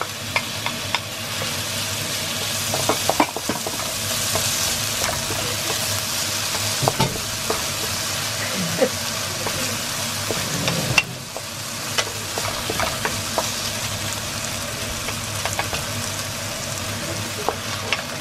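Diced red and yellow bell peppers sizzling as they sauté in a nonstick frying pan. A wooden spatula stirring them scrapes and taps against the pan now and then. The sizzle dips briefly about two-thirds of the way through.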